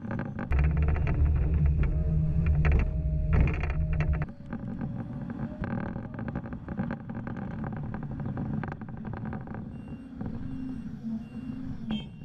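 Sunward SWE 230E excavator's Isuzu six-cylinder diesel engine running, much louder for a few seconds near the start, then running steadily. A faint repeated beep comes in near the end.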